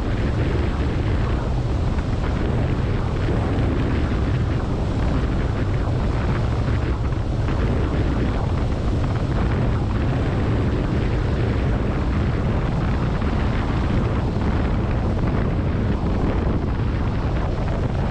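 Steady rush of airflow buffeting the microphone of a camera mounted on the outside of a sailplane gliding in to land, heavy and rumbling in the low end, with no engine note.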